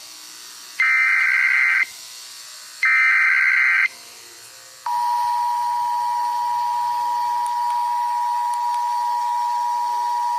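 Emergency Alert System alarm: two one-second bursts of the digital header tones, a second apart, then about five seconds in the steady two-tone attention signal starts and holds.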